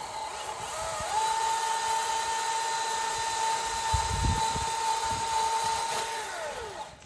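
Chainsaw's small two-stroke engine revved up to high speed about a second in, held there with a steady high whine, then let back down near the end.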